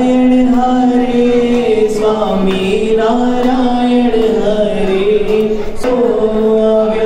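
Voices singing a Hindu aarti hymn in unison. The notes are long and held, and the melody steps between a few pitches without a break.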